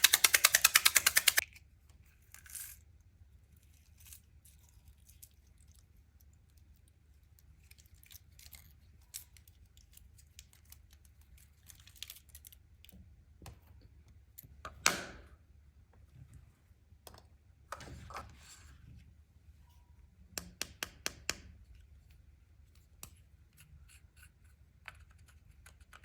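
Small clicks, taps and scrapes from handling an eyeshadow palette and tools while colouring slime. It opens with a loud, fast rattling scrape lasting about a second and a half. Sparse faint clicks follow, with a louder scrape around the middle and a quick run of about six taps later on.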